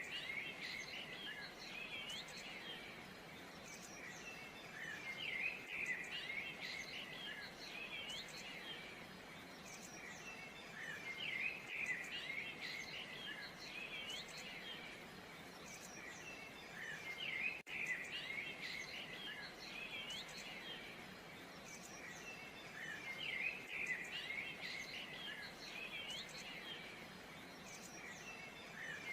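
Birds chirping and twittering over a steady hiss, in bursts of high, quick calls that recur about every six seconds.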